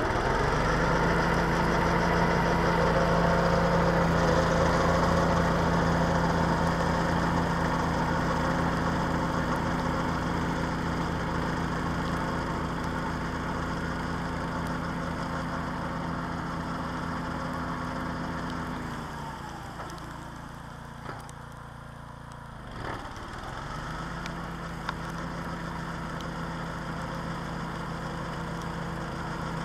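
Mini tractor engine running steadily under load, driving a homemade rotary snowblower that is throwing snow, and growing fainter as it moves away. About two-thirds of the way through, the engine note sags and drops for a few seconds, then comes back up to speed.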